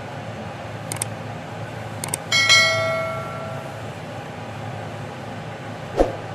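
Subscribe-button animation sound effect: two quick double clicks about a second apart, then a bright bell ding that rings out and fades over about a second and a half. A steady low hum runs underneath, and a single dull knock comes near the end.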